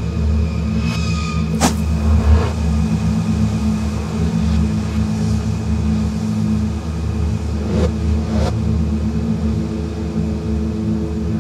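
Experimental drone sound piece: a dense low mechanical rumble layered with steady hum tones, with a sharp crack about a second and a half in. Higher steady tones enter midway and again near the end, and two fainter clicks come shortly after the middle.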